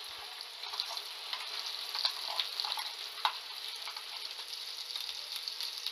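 Ground masala paste sizzling as it goes into hot oil and fried onions in a nonstick frying pan: a steady hiss with scattered sharp clicks of a steel spoon scraping the paste out of a steel bowl.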